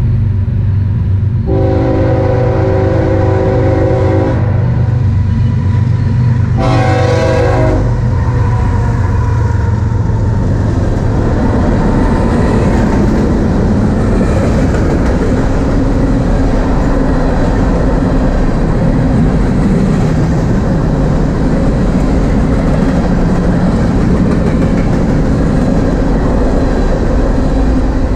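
BNSF freight train passing, led by GE diesel locomotives: two horn blasts, a long one about a second and a half in and a shorter one a few seconds later, over the engines' low rumble. Then a string of loaded covered hopper cars rolls past with steady wheel-on-rail noise.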